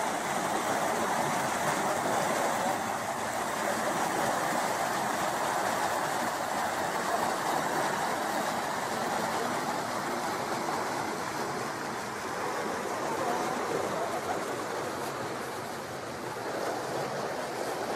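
Water rushing out through the opened sluices in a canal lock's gates and churning in the channel below: a steady rushing that grows slightly softer near the end.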